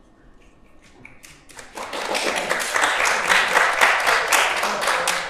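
A small group of people clapping by hand: a few scattered claps about a second in, quickly building into steady applause that begins to die down near the end.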